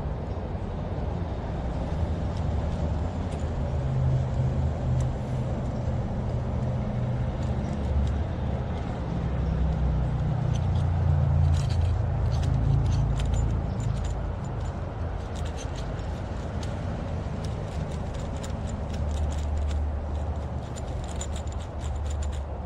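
A steady low rumble that swells and eases, with scattered small clicks and taps from about halfway on, the sound of a plastic and metal phone mount being handled and fitted onto a handlebar.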